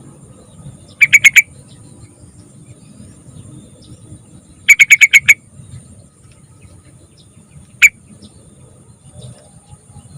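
Sooty-headed bulbul (trucukan) calling in short bursts of rapid, sharp, evenly spaced notes: a quick run of four about a second in, a run of six near the middle, and a single note later.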